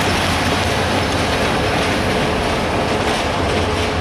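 Intercity passenger coaches rolling past on the track: a steady rumble and clatter of steel wheels on rails, with a faint steady tone running through it.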